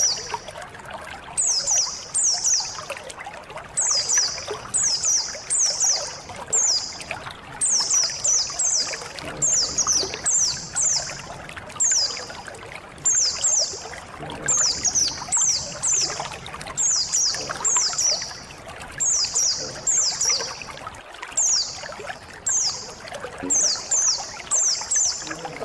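White-eyes (pleci) calling: short, high, downward-sweeping chirps, mostly in quick pairs or threes, repeating about every second over the steady sound of trickling water.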